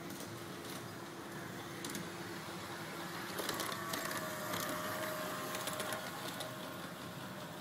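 LGB 2060 G-scale model diesel switcher running on its track: a steady electric-motor whine with some clicking from the wheels. It gets louder from about three seconds in as the locomotive passes close, then eases off.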